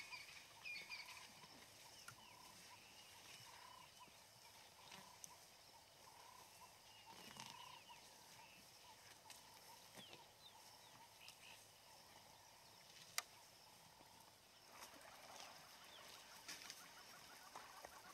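Near silence: faint outdoor ambience with scattered short bird chirps and a single sharp click about two-thirds of the way through.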